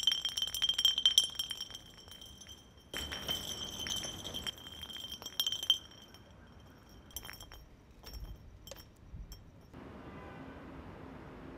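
Glass bottle rolling on rough pavement: a ringing, clinking rattle that fades over the first six seconds, then a few separate clinks as it comes to rest. A faint steady low hum takes over near the end.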